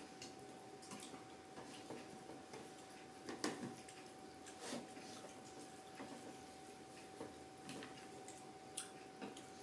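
Faint, irregular small clicks and taps, a few louder ones about three and a half and five seconds in, over a faint steady high hum.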